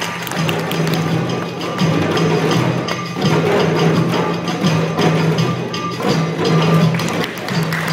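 A class of children playing goblet hand drums (dumbec-style drums) together, many strokes overlapping in a steady, repeating rhythm.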